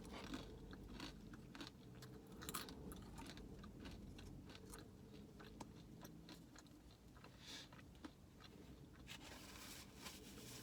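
A person chewing and crunching food close to the microphone, with faint, scattered crackles and a few louder crunches.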